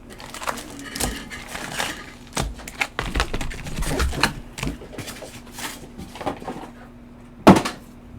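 Trading-card packs and cards being handled: a run of small clicks and rustles, with one sharp knock near the end.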